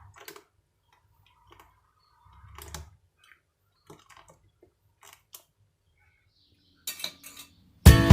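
Scattered light clinks and knocks of dishes or glassware being handled, with a duller knock about two and a half seconds in. Guitar music starts loud right at the end.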